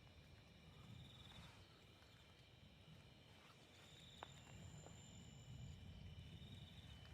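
Faint chorus of crickets and other night insects: several steady high trills, some pulsing, over a low rumble, with a single sharp click about four seconds in.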